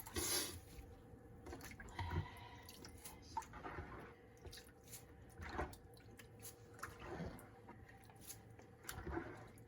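Wet tengusa seaweed (Gelidium amansii) being handled: soft, scattered squishes and drips of water.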